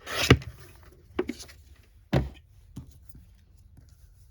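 Paper being handled on a craft table: a short rasping rustle at the start, lighter rustles after, and a thud of something set down about two seconds in.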